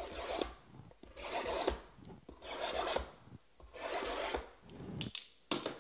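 Sealed cardboard hobby boxes of 2020 Panini Prizm Draft Picks football cards being slid and shuffled on a table mat: four scrapes about a second apart, then a couple of quick taps near the end.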